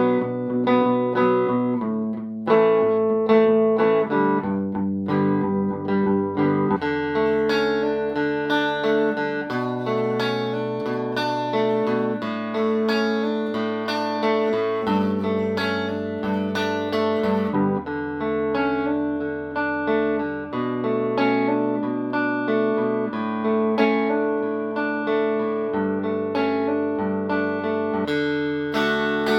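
Fender Telecaster electric guitar played clean through a Fender '57 Tweed Twin amp with no effects: ringing chords and notes that change every second or two.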